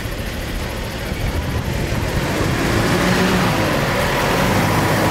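Mitsubishi Triton 4WD ute crawling over a rutted sandy track, its engine running at low revs with tyre and sand noise, growing louder about halfway through as it comes up close and passes.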